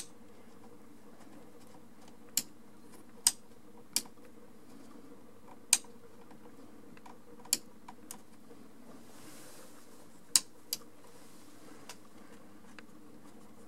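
About eight sharp, single clicks at irregular intervals, most likely the push switch on an under-shelf LED light fixture being pressed to cycle its soft and bright settings. A steady low hum lies underneath.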